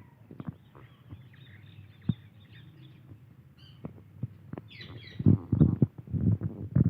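White Indian ringneck parakeet giving soft, high chirps. A run of loud, low thumps comes in the last couple of seconds.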